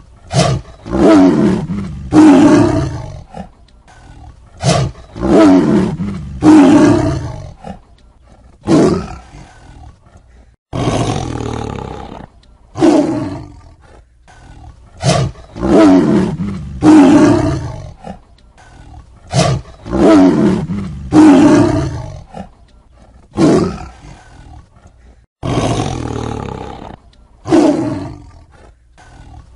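Tiger roaring and snarling in a long series of short calls, one every second or two, each rising sharply and tailing off; some start or stop abruptly.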